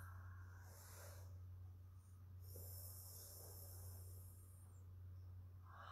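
Faint breathing of the yogic cooling breath (sitali), air drawn over a rolled tongue: a soft breath about a second in, then a longer hiss from about two and a half seconds in, over a steady low hum.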